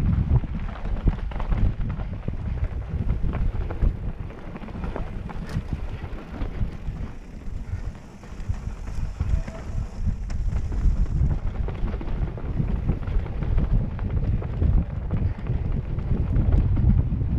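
Wind buffeting a helmet-mounted microphone during a mountain-bike descent on a dirt trail, a gusty low rumble mixed with the rattle and crunch of tyres and bike over rough ground. It eases off around the middle and builds again toward the end.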